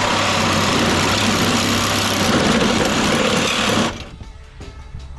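A loud motor-driven machine running steadily for about four seconds, then cutting off suddenly.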